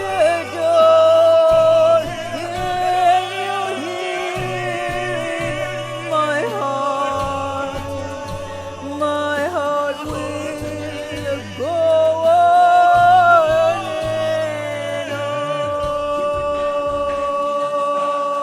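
Solo singing from a vocal-talent performance, with long held and sliding notes over a low steady accompaniment, ending on one long sustained note.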